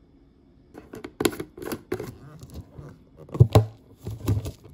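Hands handling a clear plastic tub of fried cutlet snacks: crinkling plastic, rustles and sharp clicks, with a couple of louder knocks about three and a half seconds in.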